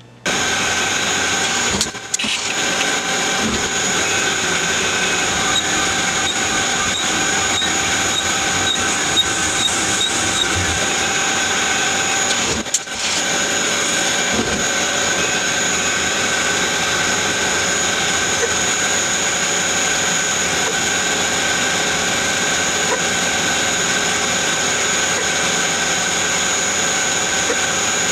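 Tormach Slant Pro CNC lathe running while turning a 304 stainless steel part under flood coolant: a steady machine whine over the hiss of coolant spraying. The sound drops out briefly twice.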